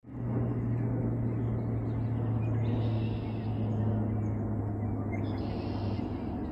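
Outdoor ambience with a steady low hum, and two brief higher-pitched sounds about three and five seconds in.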